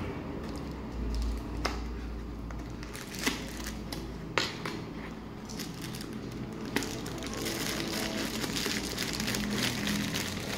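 Cardboard box being opened and handled, with a few sharp clicks and taps of the card. From about two-thirds of the way in, the crinkling of plastic wrap grows as the wrapped chopper is lifted out of the box.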